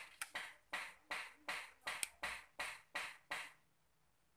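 Rhythmic rasping or scraping strokes, a little uneven at about three a second, each starting sharply and fading; they stop a little over three seconds in.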